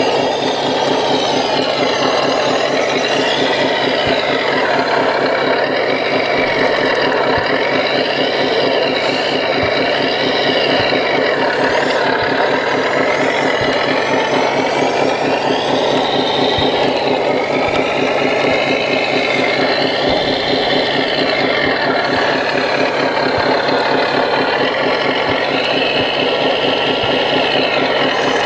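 RC CAT 963D track loader's electronic sound module playing a steady diesel engine idle. The whine of the model's electric motors rises and falls several times as it drives and works its bucket.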